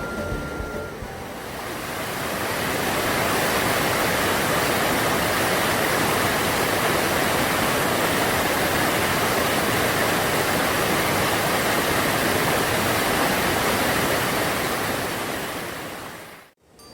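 Valley stream rushing over rocks: a steady, even rush of water that swells in over the first couple of seconds as background music fades away, then fades out and cuts off near the end.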